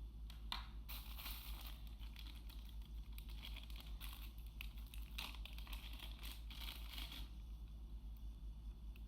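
Crinkling and rustling of packaging being handled, in uneven bursts that thin out near the end, over a steady low hum.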